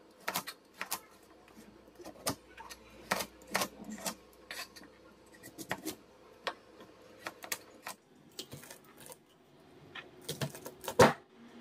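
Kitchen knife chopping carrots on a plastic cutting board: irregular sharp knocks, about one or two a second, with a quick cluster of cleaver chops near the end, the last of them the loudest.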